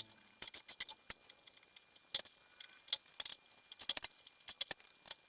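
Wrench clicking in short, irregular runs of sharp clicks as the running-board mounting bolts are torqued down.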